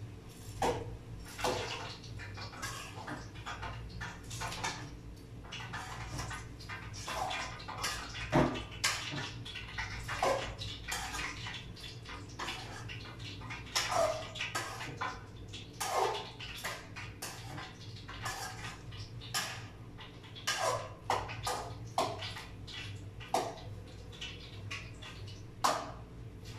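Metal ladle scraping and knocking against a wok as food is stirred, in irregular strokes every second or so, over a steady low hum.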